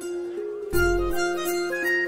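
Background music: a light melody of short notes over a held note, with a bass and beat coming in under a second in.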